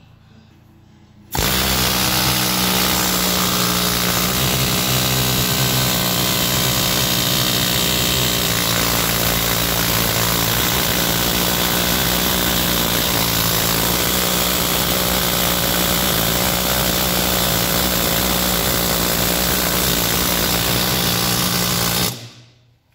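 Power tool running steadily on a long extension and socket fitted to a seized common-rail diesel injector, to work it loose. It starts abruptly about a second in, keeps an even, unchanging note, and fades out near the end.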